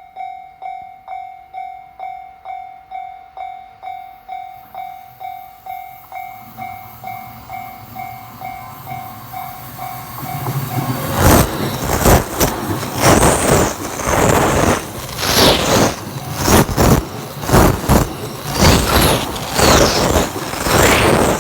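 A Japanese level-crossing warning bell dings about twice a second while a train's rumble grows. About eleven seconds in, an E217-series Yokosuka Line electric train reaches the crossing, loud enough to drown out the bell, its wheels clacking rhythmically over the rail joints as the cars go by.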